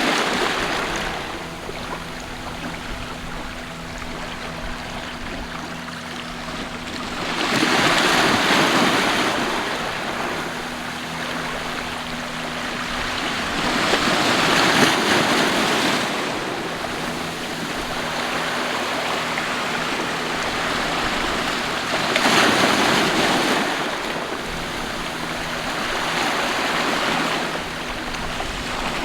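Sea waves washing onto the shore, the surf swelling and falling back about every seven seconds. A faint steady low hum sits under the quieter moments between waves.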